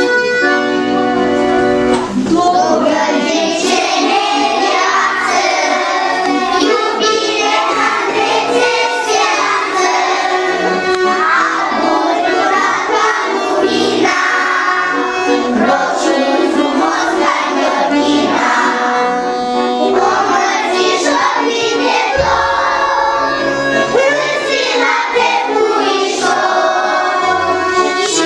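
A group of young children singing a song together over backing music. The music plays held notes alone for about two seconds before the singing comes in.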